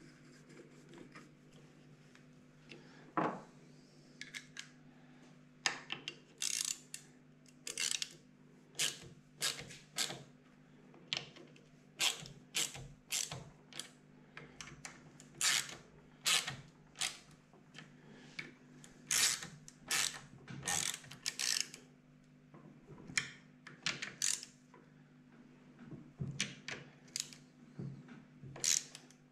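Hand ratchet wrench clicking in short, irregular bursts as the nuts on a horizontal Minarelli 50cc cylinder head are turned down, over a faint steady hum.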